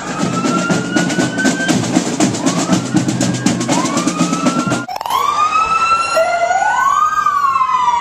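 Marching band snare drums play a rapid, continuous roll with a siren wailing behind them. About five seconds in the drums stop suddenly and an emergency vehicle's siren is left alone, loud, rising and falling.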